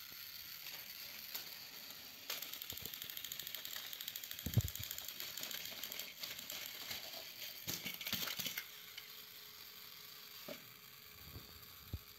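Battery-powered toy train's small motor and gears whirring with a fast, even rattle as it runs along plastic track pushing another toy vehicle. A heavy thud about four and a half seconds in, then lighter knocks, as the toys fall off the track.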